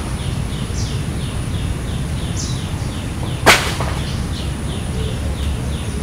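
Outdoor ambience: a steady run of short, high, falling chirps, about three a second, over a steady high whine and low rumble. About three and a half seconds in comes one sudden loud rush of noise, the loudest sound, which dies away within half a second.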